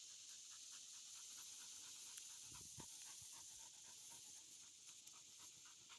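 A dog panting faintly in quick, even breaths, about five a second, winded from chasing a frisbee.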